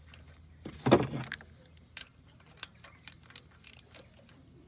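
Metal hand tools clinking and clicking against the engine while a spark plug is being loosened, in scattered irregular taps, with one louder clunk about a second in.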